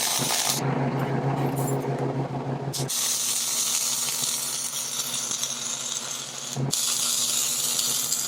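Wire-feed (MIG) welder arc welding steel plate: a steady sizzling crackle with a low hum under it for the first three seconds. The arc breaks off briefly about six and a half seconds in, then starts again.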